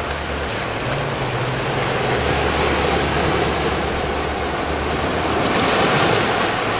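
Small ocean waves washing in and breaking over a shallow rocky reef shelf, a steady surf wash that swells louder near the end as a wave breaks over the rocks.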